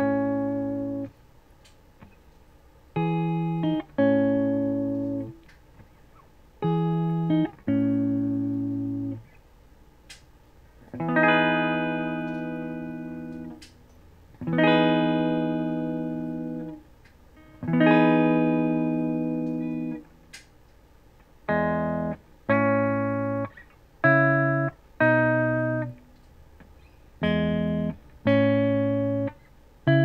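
Harley Benton SC-200 LP-style electric guitar played on a clean amp setting through a Line 6 75-watt amp, miked by an external microphone. Strummed chords come in pairs with short pauses, then three long ringing chords about halfway through, then quicker, shorter chord hits near the end.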